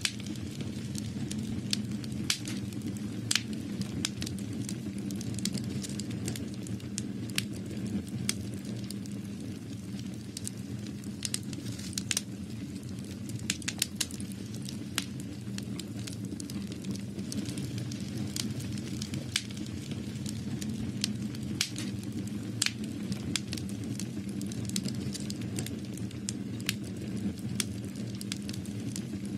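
Crackling: irregular sharp crackles and clicks, several a second, over a steady low rumble.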